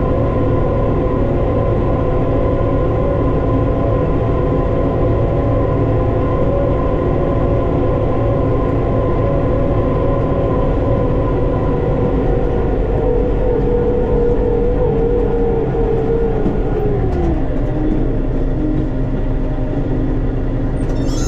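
Armatrac 1104 Lux tractor engine running steadily at working revs while pulling a field sprayer. About three-quarters of the way through, the revs fall and the engine note drops.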